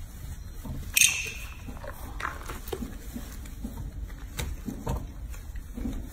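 Soapy water sloshing and small splashes as hands rub and rinse a baby monkey in a sink, with scattered small clicks. About a second in there is one sudden, sharp, louder sound.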